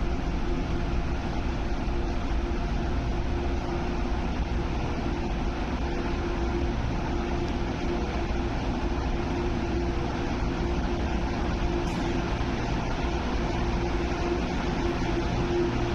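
Steady mechanical hum of an underground railway platform: a constant mid-pitched tone over a low rumble, unchanging throughout.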